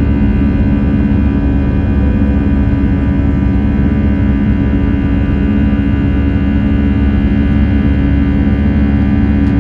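Jet airliner's engines at takeoff power, heard from inside the cabin during the climb just after liftoff: a loud, steady rushing drone with a deep rumble under it and several steady high tones on top.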